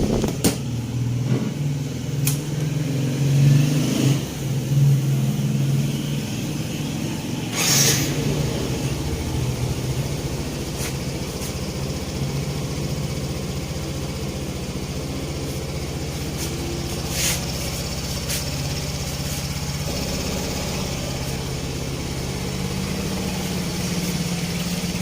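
Yamaha Mio i 125 scooter's single-cylinder four-stroke engine running after a top overhaul, blipped a few times in the first few seconds and then idling steadily, its earlier engine noise gone. Two short sharp clicks sound about eight and seventeen seconds in.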